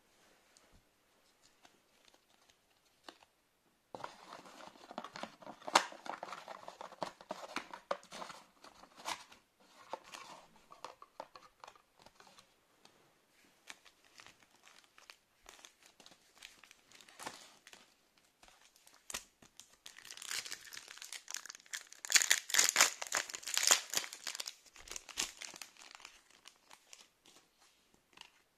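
Foil Pokémon booster-pack wrappers crinkling and tearing open, in two spells, the second one louder, with light clicks of cards being handled in between.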